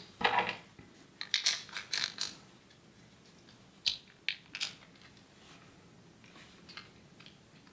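Light clicks and taps of a small hard-plastic garage remote casing being handled and fitted together: a quick cluster in the first two seconds, then three more around four seconds in.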